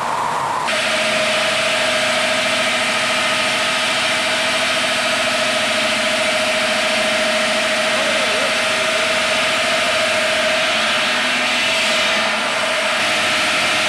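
DTJ 100 stone cutting machine's large circular saw blade and drive motor running while cutting a stone block under water spray: a loud, steady grinding hiss over a steady whine. The sound changes abruptly under a second in and again about twelve seconds in.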